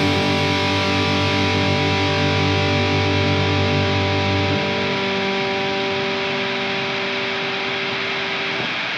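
Music: a distorted electric guitar chord left to ring out, its tones held steady. The bass end drops away about halfway through.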